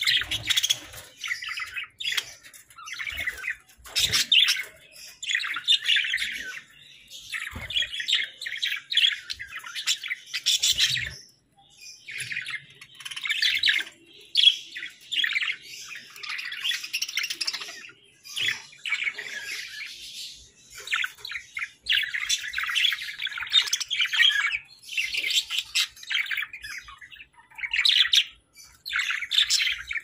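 A flock of budgerigars, Hagoromo budgies among them, warbling and chirping in dense overlapping bursts with brief pauses, with an occasional short squawk. A few soft knocks sound now and then.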